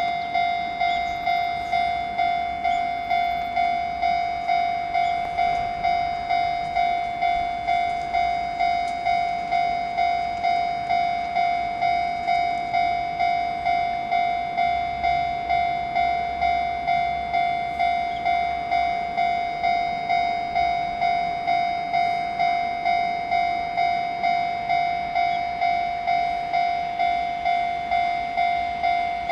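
Railway level-crossing warning bell ringing in an even, repeating ding, a little more than one strike a second, signalling an approaching train.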